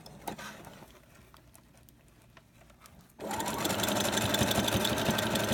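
Household sewing machine stitching a hair weft track onto a wig cap: it stops, leaving a few faint clicks for about three seconds, then starts running again about three seconds in and keeps going steadily.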